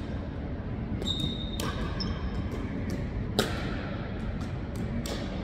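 Pickleball rally: sharp pops of paddles hitting a plastic ball and the ball bouncing on a hardwood gym floor, ringing in a large hall, the loudest hit about three and a half seconds in. A brief high squeak about a second in.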